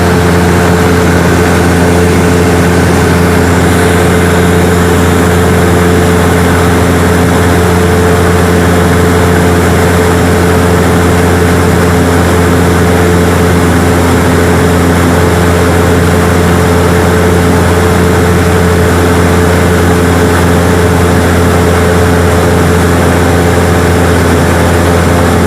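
Light propeller plane's piston engine and propeller running in flight: a loud, steady drone with an unchanging pitch.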